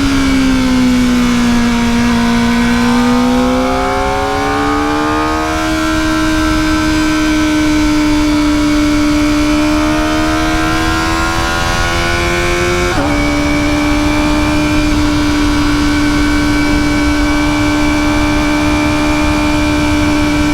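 Kawasaki ZX-4RR's 399 cc inline-four on its stock exhaust, running at high revs under way. The pitch dips over the first two seconds, then climbs steadily. About 13 seconds in it drops suddenly by a small step and then holds steady.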